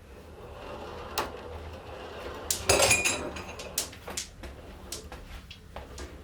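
Marbles clicking and clattering along a plastic marble run: scattered sharp clicks, with a dense rattling clatter a little before halfway through.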